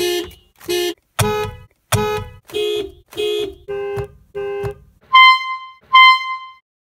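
Car horn sounded in a quick series of about eight short honks, slightly varying in pitch, followed near the end by two higher, cleaner beeps.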